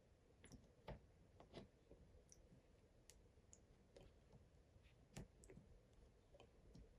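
Near silence with faint, irregular clicks and taps, and a louder knock about a second in and another about five seconds in.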